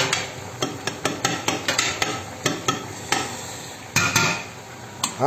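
Pots cooking on a stove, with irregular light clicks and taps of metal on the pots over a steady hiss from the cooking.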